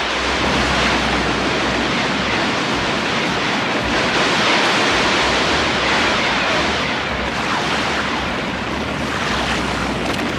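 Cartoon sound effects of energy beams striking a river: a steady, loud rush of noise like churning water and spray, with no separate shots standing out.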